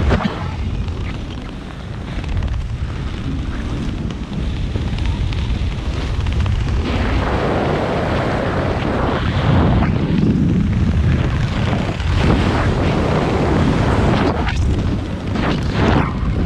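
Wind buffeting the microphone of a camera worn by a skydiver descending under an open parachute canopy, a steady low rumbling rush that swells and eases in gusts.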